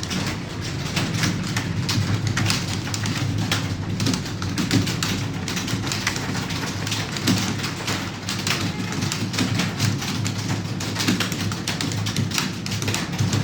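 Computer keyboard being typed on rapidly, a continuous clatter of keystrokes at several per second.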